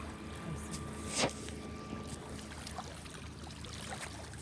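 A small boat's motor running low and steady, with water trickling and one splash or knock about a second in.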